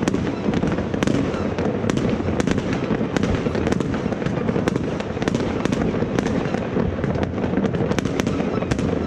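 Fireworks going off all over a neighbourhood at once: a dense, unbroken din of distant bangs, with sharp nearer cracks and bangs standing out several times a second.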